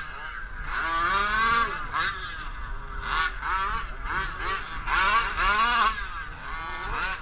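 Small two-stroke engines of 1/5-scale gas RC cars revving up and falling off on the throttle, several rising-and-falling whines overlapping as the cars run around the track.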